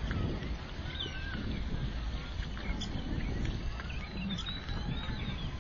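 Birds chirping and calling repeatedly, many short rising and falling notes, over a steady low rumble.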